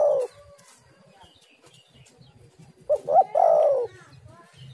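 Spotted dove cooing: the last note of one call fades just after the start, then a full call comes about three seconds in, two short notes followed by a longer note that falls away.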